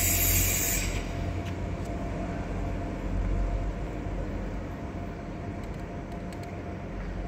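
Low, steady rumble of a Class 66 diesel locomotive's two-stroke V12 engine in the distance. A loud hiss in the first second cuts off abruptly, then the rumble eases slightly.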